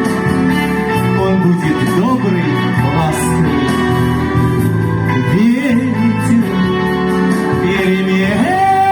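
Song music: a pop accompaniment with a plucked-string part and a voice singing gliding, wordless-sounding lines. Near the end a new sustained high note comes in.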